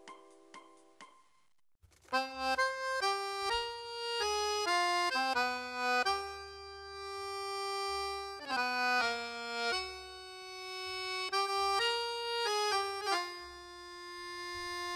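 Background music: after a short gap, a melody of held and shorter notes on a reedy instrument comes in about two seconds in, over a low bass.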